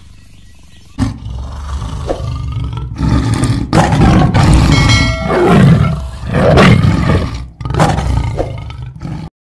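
Tiger roaring and growling in several long, loud bouts, starting about a second in and cutting off abruptly just before the end.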